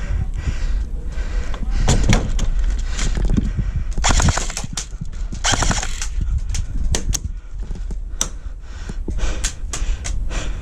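Airsoft guns firing during a game: scattered shots and clicks, with two rapid full-auto bursts about four and five and a half seconds in.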